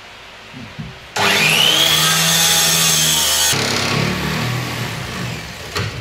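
Corded power saw starting about a second in, its motor whining up to a high steady pitch as it cuts into the bulkhead panel. After a couple of seconds the pitch drops and it runs on lower, easing off near the end.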